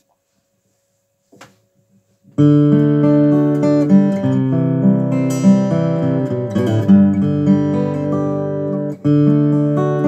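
A 2018 Martin OM-21, a rosewood-and-spruce orchestra-model acoustic guitar, being picked. After a faint tap, the playing starts about two seconds in and runs on, with a steady bass pattern under the melody notes and a brief break near the end.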